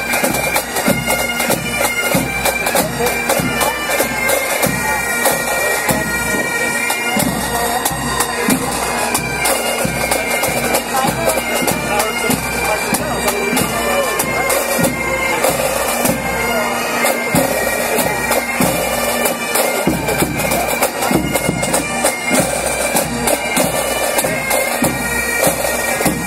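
Pipe band playing: bagpipes with their steady drones under the melody, and drums beating along in a regular march rhythm.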